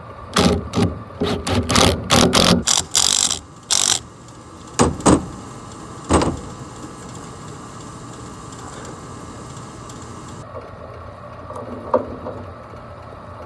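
Metal clicks and knocks of hand tools working on an HVAC blower motor and its mounting bracket. There is a quick run of about a dozen in the first four seconds, two more at about five and six seconds, then mostly a steady hum.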